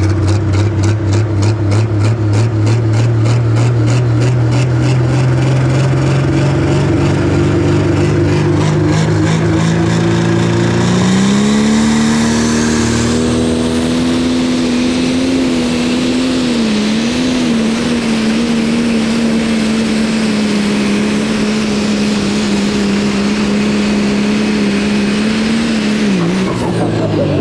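Turbocharged diesel engine of a Pro Stock pulling tractor under load. It runs low with a fast, even pulsing, climbs in pitch about eleven seconds in and holds high revs with a wavering pitch, then drops off near the end.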